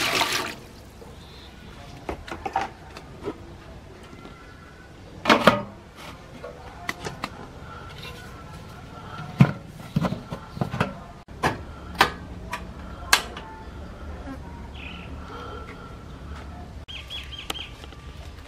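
Water pouring into a large aluminium pot stops about half a second in. Then come scattered sharp metal knocks and clanks, several close together between about 5 and 13 seconds in, as the aluminium steamer tiers and domed lid are handled and set in place. Faint bird chirps sound near the end.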